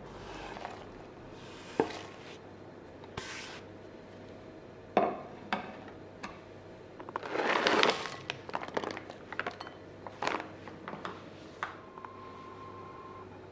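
Kitchen handling sounds: a few sharp clinks and knocks of utensils against bowls or dishes, a louder rustling, crinkling burst a little past the middle, then a quick run of small clicks.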